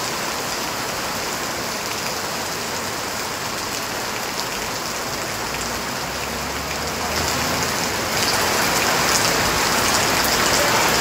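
Heavy rain falling steadily, with water pouring off a roof edge onto the ground. It grows louder about seven seconds in.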